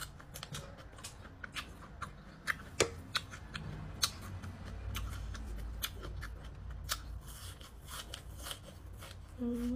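Close-up eating sounds: irregular sharp clicks of chewing and mouth noises as fried catfish and fresh vegetables are eaten by hand.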